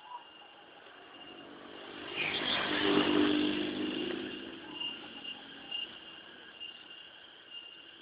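A motor vehicle passes on the road, swelling to a peak about three seconds in and then fading, over a steady high-pitched insect trill.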